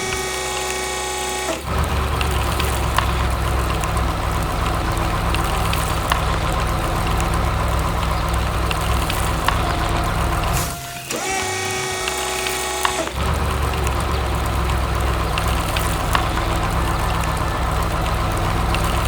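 Heavy machinery engine running steadily under load, with a short break about eleven seconds in where steady pitched tones take over before the engine sound returns.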